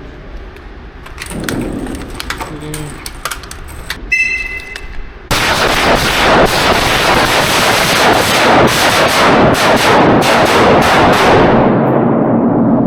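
Rifle fire: a few scattered shots, then from about five seconds in a long run of dense, continuous rapid fire whose crack dulls near the end.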